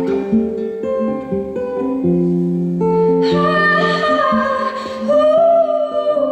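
Acoustic guitar playing a picked accompaniment in a live song performance; about halfway through a voice joins with one long wordless sung note, then the guitar carries on alone near the end.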